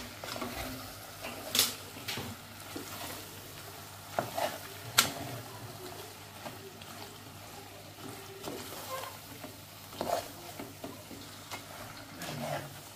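A metal spoon stirring thick macaroni pasta in an aluminium pot on the stove, with a few sharp clinks and scrapes of the spoon against the pot, the clearest about one and a half and five seconds in. A faint steady sizzle runs underneath.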